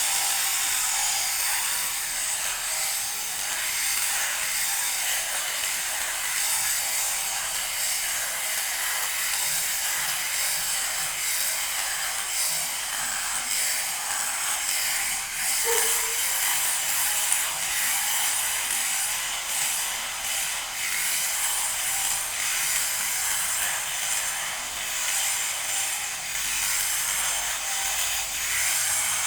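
Electric sheep shearing machine running steadily, with the high buzzing chatter of its reciprocating cutter.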